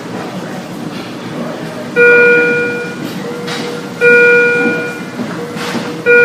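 An electronic hospital alert chime sounding three times, about every two seconds, each tone starting suddenly and fading over about a second, over a low murmur of room ambience and voices.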